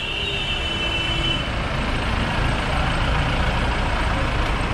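Street traffic with vehicle engines running as a steady low rumble. A vehicle horn, already sounding as the clip begins, tails off and stops about a second and a half in.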